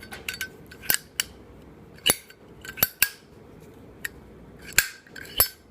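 Zippo lighter's hinged metal lid repeatedly flipped open and snapped shut, about nine sharp metallic clicks: the classic Zippo click, played as a sound check.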